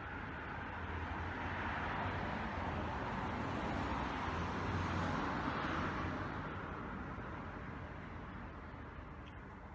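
A vehicle passing by: a rushing noise that swells to a peak about five seconds in and then fades away.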